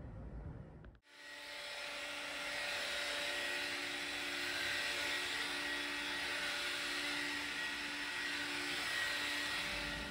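Vacuum cleaner running steadily over the floor: a rush of air with a steady motor whine. It starts abruptly about a second in.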